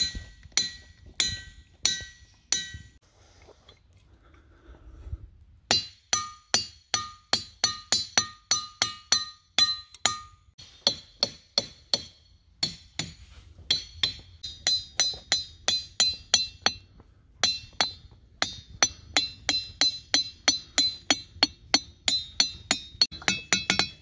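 Olivine diabase boulders struck repeatedly with a hammer, each blow a sharp clink that rings on in a short bell-like tone, the sound of a "live" ringing rock. The strikes come in quick runs of about three a second, with a pause of a few seconds near the start, and the ringing pitch changes between runs as different rocks are hit.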